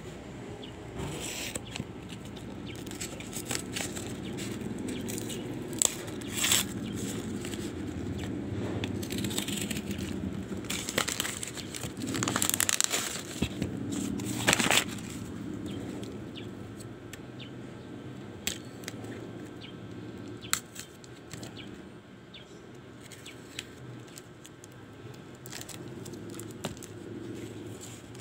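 A parcel being cut open with a craft knife and unwrapped by hand: paper and plastic wrapping crinkling and tearing, with frequent small clicks and scrapes of the blade and tape. The crinkling gets louder for a few seconds about halfway through.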